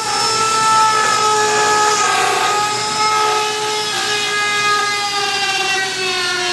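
Electric power tool cutting through a solid fiberglass boat hull, its motor running with a steady whine whose pitch sags slowly as it bears into the cut.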